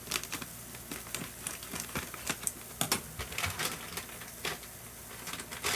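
Irregular clicks and taps of a cooking utensil working food in a pan on the hob, with a louder knock near the end.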